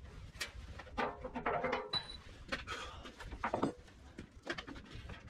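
Scattered knocks, clanks and scrapes of hand work on a tractor's front-end loader mount bracket.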